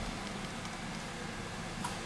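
Steady low background hum and hiss, with one faint short click near the end.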